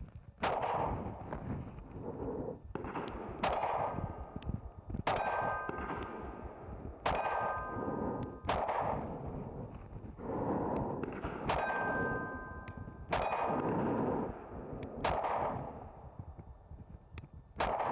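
Compact pistol fired at a slow, steady pace, about ten shots one every two seconds or so, each crack followed by the clang and ring of a hit on a steel target.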